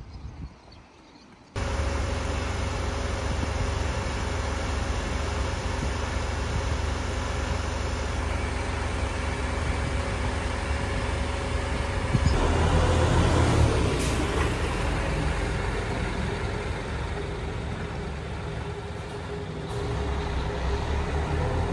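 Diesel railcar engine running steadily with a deep rumble and a steady drone. It starts abruptly about a second and a half in and grows louder around twelve seconds in.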